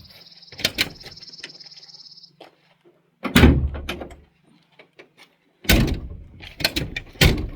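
Pickup truck door being opened and handled: a run of clunks and knocks, the heaviest about three seconds in, with more knocks near the end.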